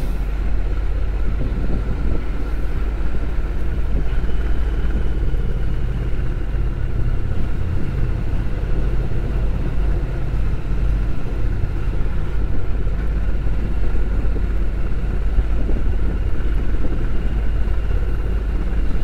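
Honda NC750X motorcycle's parallel-twin engine running steadily as the bike rides along, with road noise.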